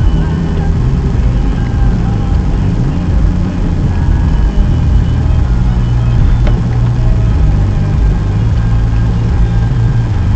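Car driving, with a steady low engine and road rumble and one sharp click about six and a half seconds in.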